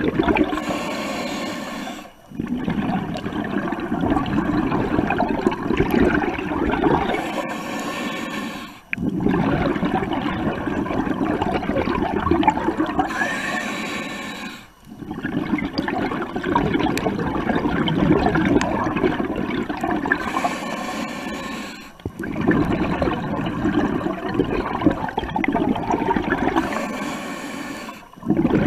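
Scuba diver breathing through a regulator underwater: a short hiss of each inhalation, then a long rush of exhaust bubbles, in a regular cycle about every six and a half seconds.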